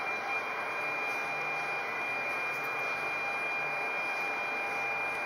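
Steady rushing noise of a running air-moving machine, like a blower or fan, with a thin, steady high whine held over it.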